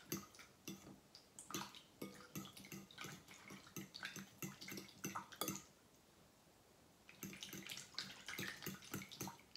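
A metal spoon stirring warm jelly mixture with fresh mango pieces in a glass bowl: faint wet sloshing with small clicks of the spoon, which stops for a second or so a little past halfway, then goes on.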